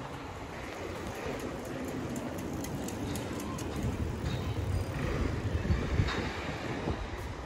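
City street ambience: a steady low traffic rumble with faint ticks and clicks mixed in.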